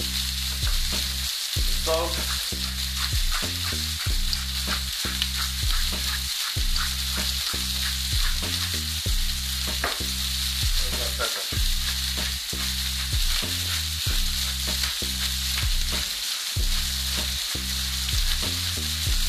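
Sliced sausage, onions and tomatoes sizzling in olive oil in a frying pan, a steady hiss throughout. Low tones underneath change pitch in steps about every half second.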